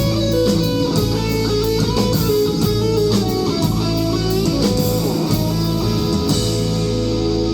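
Live rock band playing an instrumental, guitar-led passage: electric guitar lines with sliding notes over a steady band backing.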